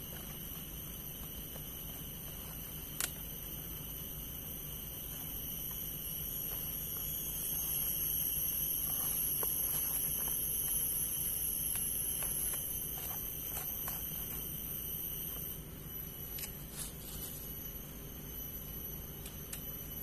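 Insects droning in several steady high-pitched tones, growing louder for a few seconds in the middle, with a few short clicks and rustles from hands handling leaves and sticks.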